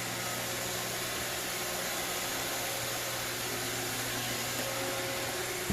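iRobot Roomba 655 robot vacuum running steadily, its motor and brushes giving an even whirring hum with a low steady tone.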